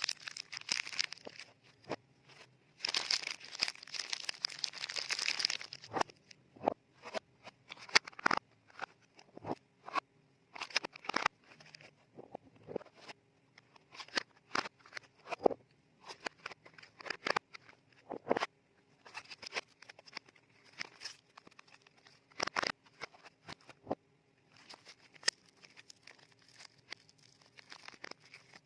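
Frosted-paper soap wrappers crinkling as they are folded back around soap bars, with a longer rustle of paper about three seconds in. Sharp taps and clicks from handling the wrapped bars come throughout.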